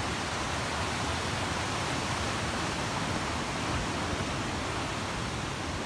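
River rapids rushing: a steady, even wash of white water.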